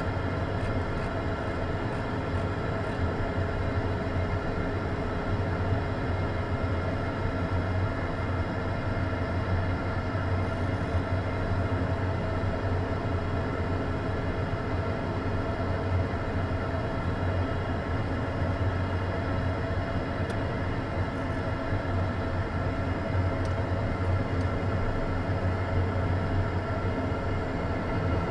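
Beechcraft Premier I's Williams FJ44 turbofan engines idling on the ground, heard inside the cockpit: a steady low hum with several steady whining tones above it.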